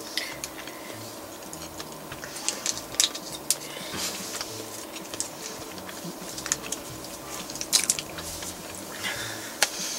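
A person chewing a mouthful of fried food: irregular wet mouth clicks and small crisp crackles, with a few louder ones scattered through.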